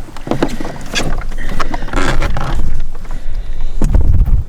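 Small boat being moved on the water: scattered knocks and water noise, with wind buffeting the microphone, heaviest near the end.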